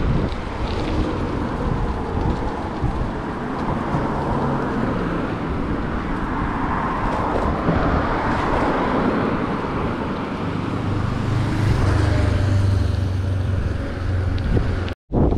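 Road traffic noise and rushing air picked up by a cyclist's action camera while riding. A vehicle's engine hum rises over it about eleven seconds in, and the sound cuts out for an instant near the end.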